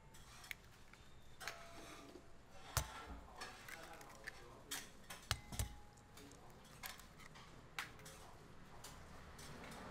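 Eggs being tapped and cracked open one after another against the rim of a small ceramic bowl: a series of sharp taps and shell cracks, the loudest about three seconds in.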